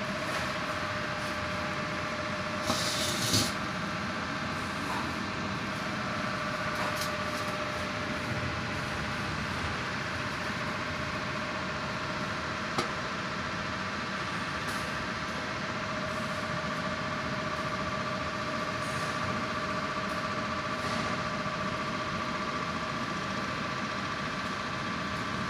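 Drilling rig running steadily, a continuous mechanical noise with a steady hum, and a brief hiss about three seconds in.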